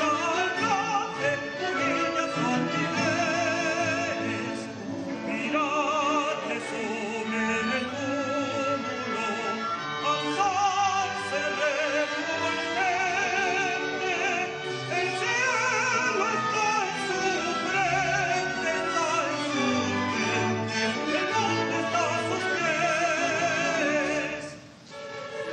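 Operatic singing with a wide vibrato over a full symphony orchestra, in classical style. Near the end the music drops away for a brief pause.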